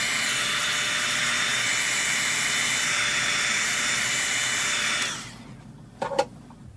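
Electric heat gun blowing a steady hiss of hot air, cutting off suddenly about five seconds in, followed by a short sharp click.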